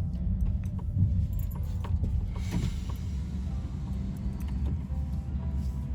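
Steady low rumble of a car heard from inside the cabin as it drives slowly, with a few faint clicks and a brief rush of noise about midway.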